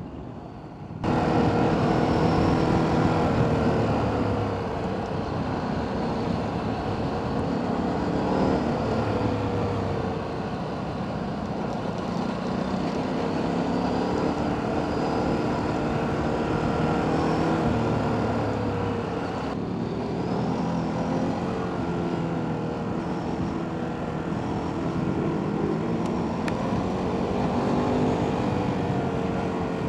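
Ducati adventure motorcycle's engine running steadily under way on a dirt road, its pitch rising and falling a little, over a constant rush of wind and tyre noise. The sound cuts in loudly about a second in.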